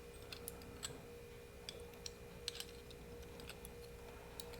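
Faint, scattered light clicks and taps of small metal carburettor parts (throttle slide, needle and clip) being handled, over a steady faint hum.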